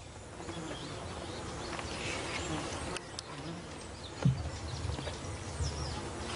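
Flies buzzing steadily around a carcass, with one sharp knock a little over four seconds in.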